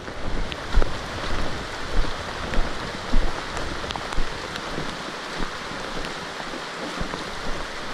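Steady hiss of rain falling on the forest foliage, with soft low thumps of footsteps on the trail roughly once a second.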